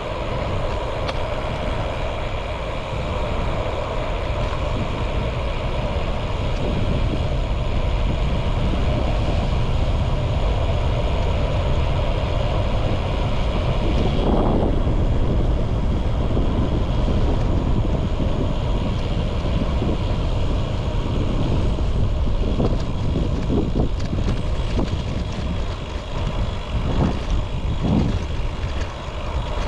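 Wind rushing over a handlebar-mounted GoPro's microphone as a Trek Domane road bike rolls along a lane, with tyre and road noise underneath. A few short rattles from the bike come through near the end.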